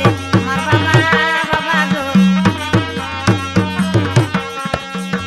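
Instrumental passage of a Bengali Jhumar folk song: hand drums play low strokes in a steady rhythm under a melodic instrument line, with no singing.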